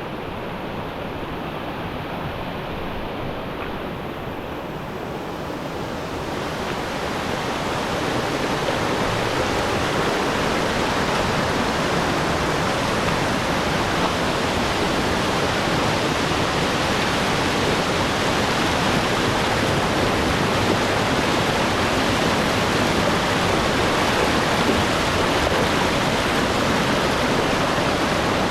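Waterfall pouring with a steady rush of water. The rush grows louder from about six to nine seconds in, then holds level.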